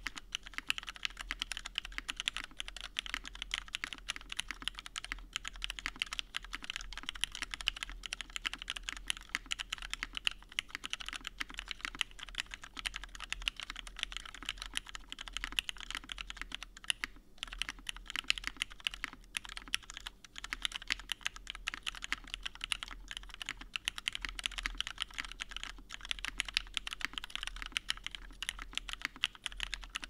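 Fast, continuous typing on a custom mechanical keyboard built with lubed Cherry Retooled Black linear switches on an aluminium plate, with NCR dye-sub keycaps: a dense run of keystroke clacks with one brief pause a little past halfway.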